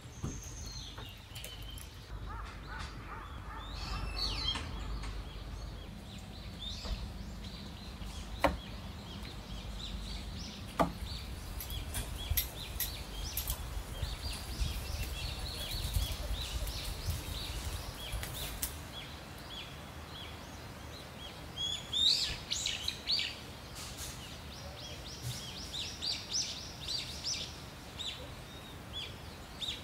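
Small birds chirping and calling over a steady outdoor background, with quicker runs of chirps near the end. Two sharp clicks sound in the first half.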